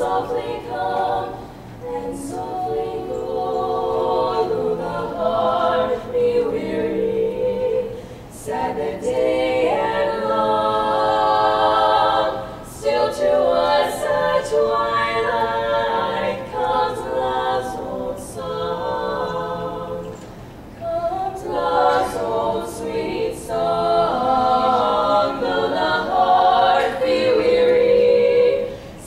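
Female barbershop quartet singing a cappella in four-part close harmony. The phrases are broken by a few brief pauses for breath.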